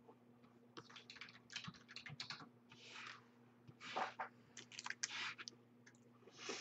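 Typing on a computer keyboard: quiet, irregular runs of key clicks with a few short rustles among them.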